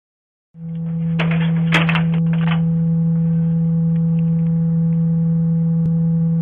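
A loud, steady low hum on one unchanging pitch, starting about half a second in, with a few faint clicks between one and two and a half seconds in. The sound is thin, as heard through a doorbell camera's microphone.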